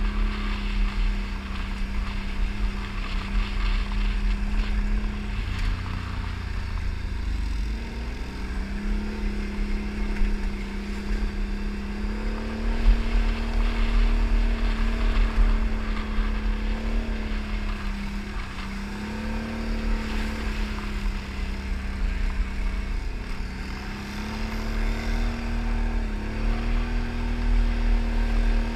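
ATV engine running while riding, its note dropping and climbing again several times as the throttle is eased off and opened, over a strong low rumble.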